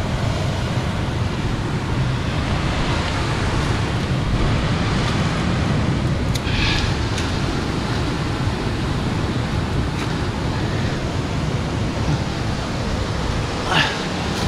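Steady rush of sea surf breaking on rocks, mixed with wind on the microphone. Two brief sharp sounds cut through, about halfway and near the end.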